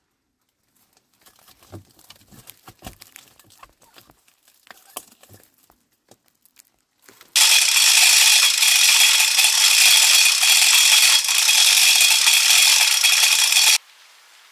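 Scattered small clicks and crackles, then about seven seconds in a loud, steady hiss of heavy rain that stops suddenly near the end.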